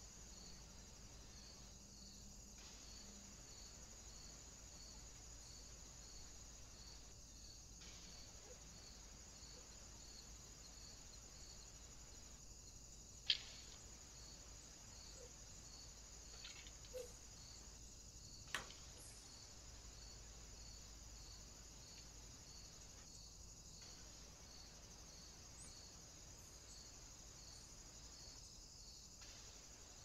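Faint, high-pitched insect chirping, pulsing about twice a second, over near-silent woodland, cut by brief dropouts every five seconds or so. Two sharp clicks stand out, one near the middle and one a few seconds later.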